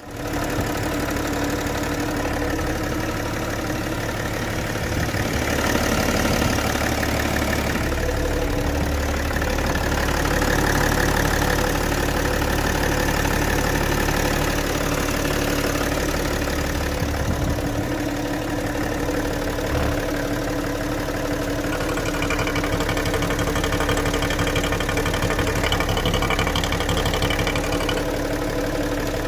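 BMW E91 330d's M57 straight-six diesel engine idling steadily, with a knocking in its running that the owner is unsure is normal.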